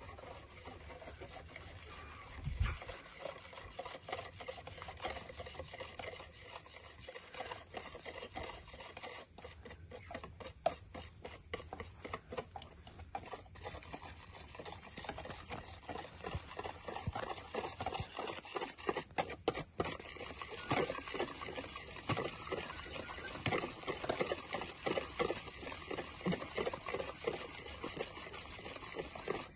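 Rhythmic rubbing and scraping by hand, a few strokes a second, growing louder in the second half. A single low thump about two and a half seconds in.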